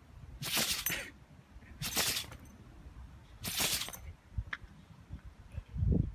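A dog sneezing three times in a row, about a second and a half apart, each a short, sharp blast of air through the nose. A low thump comes near the end.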